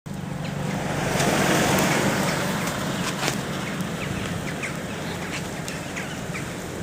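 Blizzard wind blowing in gusts and buffeting the microphone, swelling about a second in and then easing a little, with scattered faint ticks.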